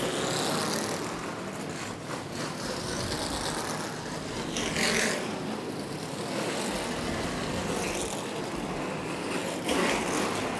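NASCAR Nationwide Series stock car V8 engines running as the cars move out of the garage: a steady mechanical din.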